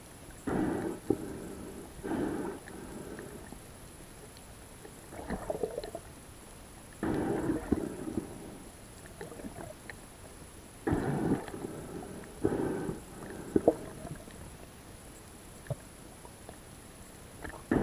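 A spearfisher breathing hard through a snorkel: paired breaths, in and out, each about a second long, coming about every five to six seconds.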